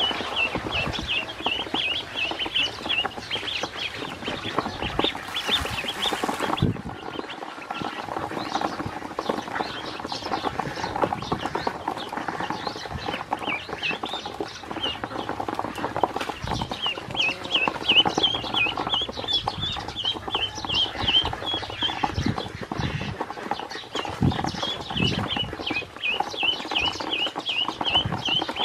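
A brood of ducklings peeping in quick, high-pitched runs while they peck feed from the bottom of a plastic tub, their bills clicking on the plastic; the peeping thins out for several seconds in the middle and then picks up again.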